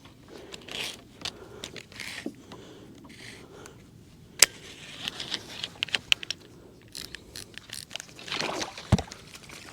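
Scattered sharp clicks and light knocks of a fishing reel and tackle being handled in a kayak, with a burst of quick clicks in the middle and one louder click before it, as the reel acts up in a way the angler suspects is a breakage.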